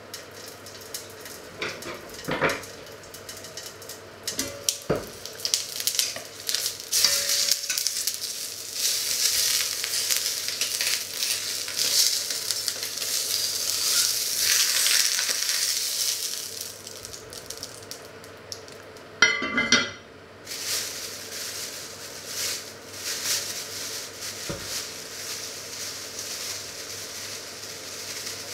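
Chicken pieces sizzling in hot oil in an enamelled cast-iron pot, the sizzle loud and steady for about ten seconds as the meat is laid in with metal tongs. About two-thirds of the way through there is a sharp clank of the heavy lid being set back on, with light handling clicks around it.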